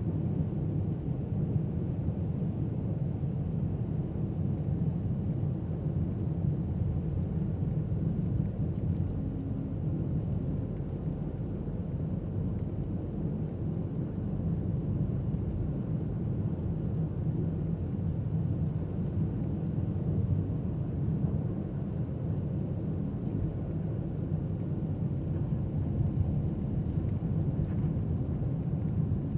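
A car's steady low rumble of engine and tyres on the road while driving.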